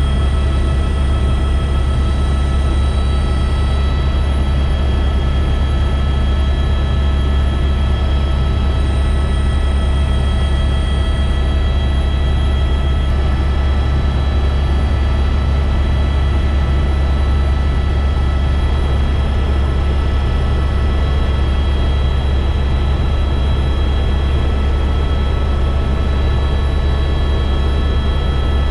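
Helicopter in flight, heard inside the cabin: a steady, loud deep drone with several constant whining tones above it.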